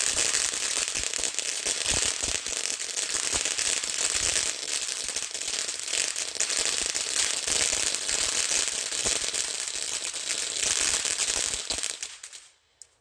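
Dominator Super Hero Fountain ground firework spraying sparks with a dense, steady crackle, its crackle finale, which dies away just before the end as the fountain burns out.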